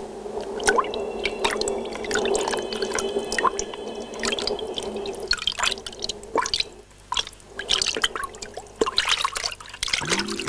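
Bath water dripping and splashing: many irregular drops, over a steady wash of water noise that stops about halfway through.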